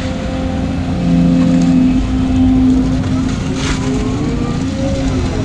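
Volvo 220 tracked excavator's diesel engine running under load, heard from inside the cab, working harder about a second in as the boom lifts a full bucket of mud, with a few rising hydraulic whines near the middle as the bucket swings.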